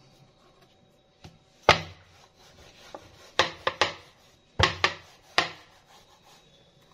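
A small rolling pin rolling out thin tortilla dough: a soft rubbing with about five sharp knocks as the pin strikes the rolling surface, the loudest about a second and a half in.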